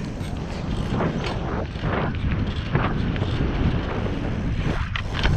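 Wind buffeting a helmet or handlebar-mounted action camera's microphone as a BMX bike rolls at speed over dirt toward a jump, with an uneven low rumble. A couple of sharp knocks sound near the end.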